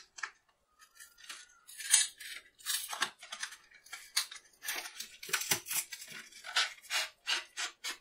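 Packaging of a pair of hacksaw blades being handled and opened: a run of irregular short rustling and crackling noises, loudest about two seconds in.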